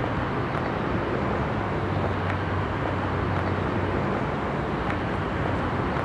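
Steady outdoor background ambience: an even wash of distant road-traffic noise with a low hum under it.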